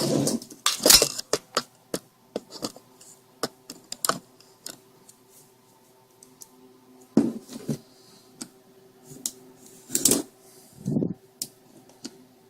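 Hard plastic of a laptop power adapter being handled and worked at with a box cutter: irregular clicks, knocks and short scrapes, busiest in the first second or so and again around seven and ten seconds in, over a faint steady hum.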